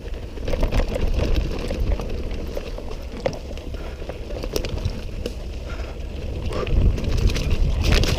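Mountain bike rolling fast down a rough dirt trail: tyres crunching over dirt and stones, with many clicks and rattles from the bike, and wind rumbling on the microphone. It gets louder about half a second in and again near the end.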